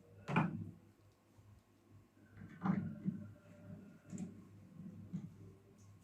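Clicks and knocks of the microwave's casing being handled and taken apart, with a faint steady hum underneath.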